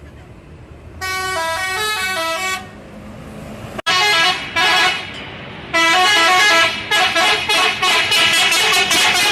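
Bus telolet horn, a multi-tone musical horn, playing a short stepping tune about a second in, then a couple of short blasts, then a long note followed by a fast run of repeated toots.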